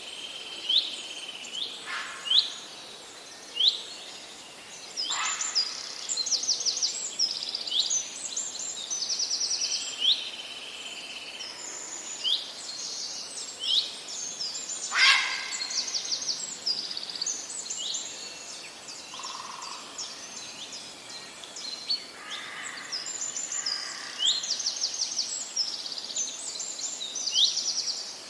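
Several songbirds singing together, a dense chorus of quick rising chirps and rapid trills, with a few louder, sharper notes, the loudest about halfway through.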